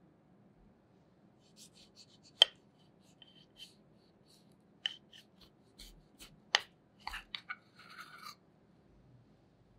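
A long knife cutting down through the crisp shortcrust pastry of a grapefruit tart: scattered crackles and crunches, with two sharp loud cracks about two and a half and six and a half seconds in, and a quick run of crackling near the end.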